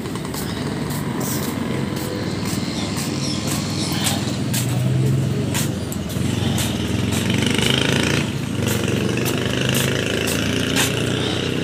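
A motorcycle engine running steadily, with sharp clicks and taps scattered through it.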